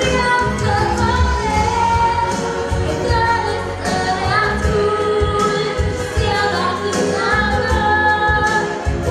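A young girl singing a song in Romanian into a handheld microphone, with instrumental accompaniment. She holds and bends long notes.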